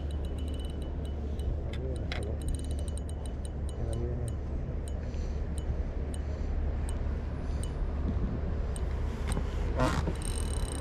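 A steady low rumble with many irregular sharp ticks and clicks over it, and one louder click near the end.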